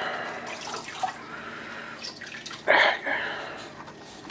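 Water running and dripping at a sink while burnt milk is rinsed out of a coffee machine's milk frother jug, with a light knock about a second in and a brief louder rush of water a little after halfway.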